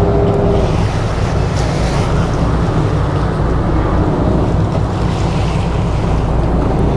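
Strong wind buffeting the microphone in a loud, steady rumble, over the low running of the Sunseeker 76's engines and thrusters as it manoeuvres off the berth, with water churning below.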